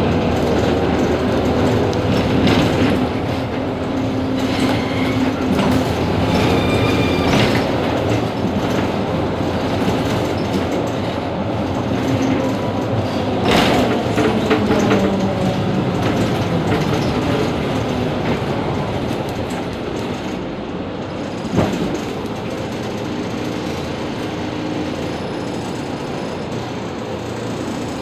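Mercedes-Benz Citaro G C2 articulated city bus idling at a standstill, a steady engine rumble. A knock comes about 13 seconds in and a sharper one about 21 seconds in.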